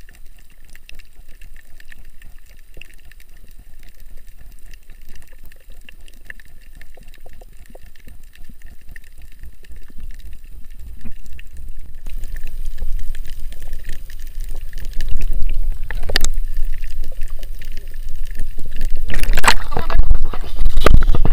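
Muffled underwater water noise from a camera held below the surface over a shallow coral reef, with a faint fine crackle. About twelve seconds in it changes to louder water noise and wind buffeting on the microphone above the surface, with a few sharp splashes or knocks near the end.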